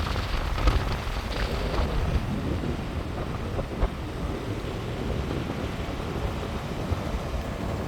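Wind buffeting the microphone, a steady low rumble with hiss over it.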